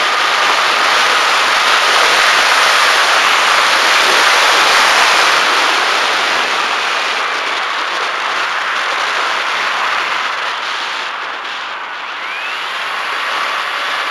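Wind rushing over the onboard camera of a Bixler foam model plane in flight, with the faint steady whine of its electric pusher motor and propeller underneath. The rush eases briefly about twelve seconds in.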